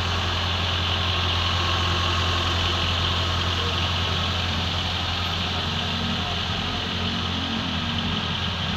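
Honda Civic D15B 1.5-litre four-cylinder engine idling steadily with a constant low hum, warming up after a cylinder head replacement.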